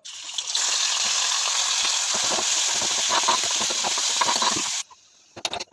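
Food sizzling in oil in a hot pan, a steady hiss with scattered crackles that cuts off suddenly near the end, followed by a few sharp clicks.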